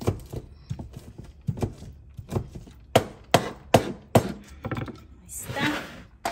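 Kitchen utensil knocks during food preparation: a run of sharp thunks, about two to three a second and loudest around three to four seconds in, then a short hiss about five seconds in.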